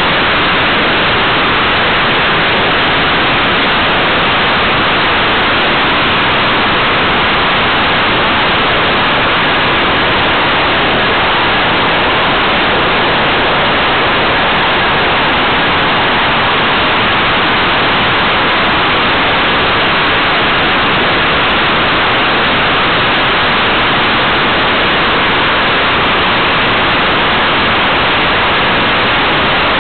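Steady, loud rushing noise with no engine or propeller tone: airflow over the microphone of a camera mounted on a model aircraft in flight.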